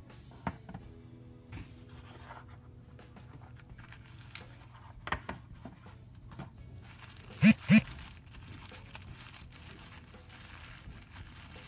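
Packaging being handled during an unboxing: rustling and crinkling with a few light clicks. About seven and a half seconds in come two sharp knocks in quick succession, the loudest sounds.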